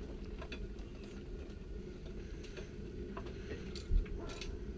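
Scattered light clicks and taps of hand tools working on the car, over a steady low hum, with one dull thump about four seconds in.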